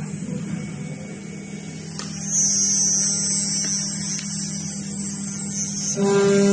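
ATC CNC machine running while cutting aluminum: a steady low hum, joined about two seconds in by a loud high-pitched whine and hiss. Near the end this gives way to a steadier, lower-pitched tone.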